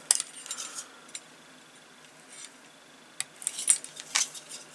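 Light clicks and taps of small plastic wire connectors and model parts being handled: a few clicks in the first second, a quiet gap, then a quick cluster of clicks from about three seconds in.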